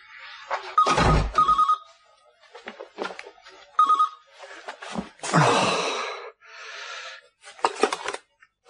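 Telephone ringing with a trilling electronic ring, in short bursts, mixed with a heavy thump about a second in, a longer rushing noise about halfway through, and clicks near the end.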